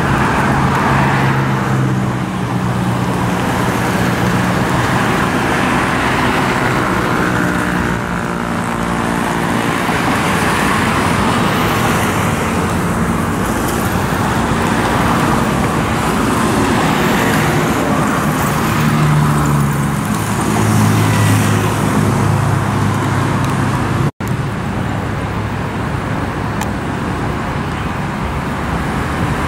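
Busy road traffic of motorcycles, scooters and cars passing close by: a steady road noise, with the engine hum of single vehicles swelling and fading as they go past. The sound drops out for an instant about three-quarters of the way through.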